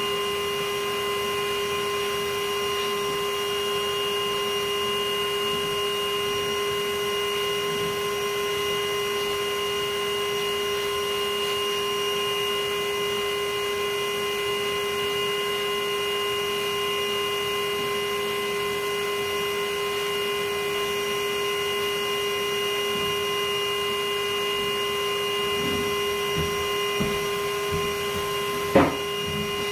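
Bee vacuum motor running with a steady, even hum. A few knocks come near the end, one of them sharp.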